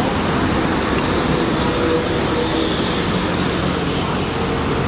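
Steady roadside traffic noise, an even rush of passing vehicles with no single event standing out.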